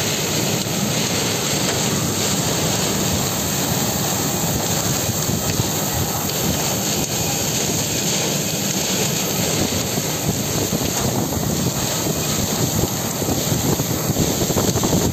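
Heavy rain and strong wind of a storm: a loud, steady rush of noise, with wind buffeting the microphone.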